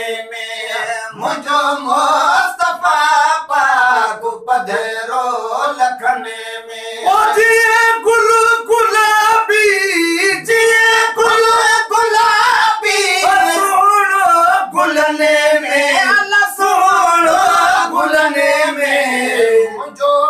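Several men singing a devotional prayer, their voices taking turns and joining, with long held notes.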